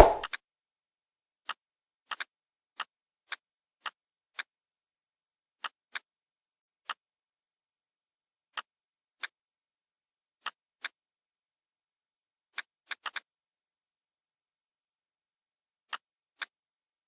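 Computer mouse clicks and keyboard key presses: about twenty short, sharp clicks spaced unevenly, some in quick pairs, with silence between them. A duller, louder thump comes right at the start.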